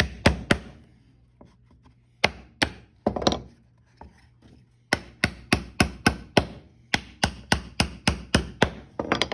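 Claw hammer driving nails into a wooden birdhouse roof board. A few strikes at the start, a short pause, a few more, then a steady run of strikes about three a second from about five seconds in.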